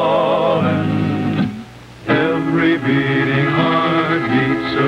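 Western string band playing a country tune: fiddle with vibrato over guitar and accordion, breaking off briefly about a second and a half in, then coming back in with men singing along.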